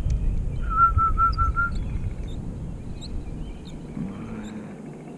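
Wind buffeting the microphone with a low rumble that eases off after about three seconds. About a second in, a bird whistles a quick run of five even notes, with faint chirps from other birds.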